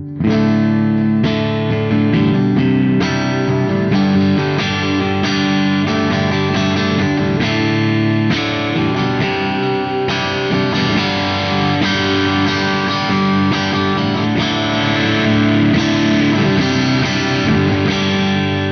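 Electric guitar played through a Soldano SLO100 clone tube amplifier with distortion, a riff of repeatedly struck chords and notes that starts right at the beginning.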